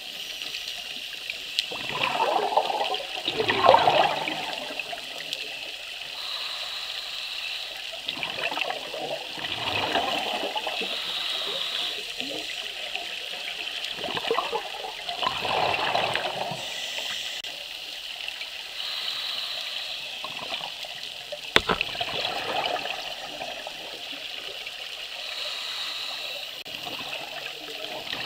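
Scuba diver breathing through a regulator underwater: a bubbly rush of exhaled air swells and fades about every six seconds. One sharp click comes about three-quarters of the way through.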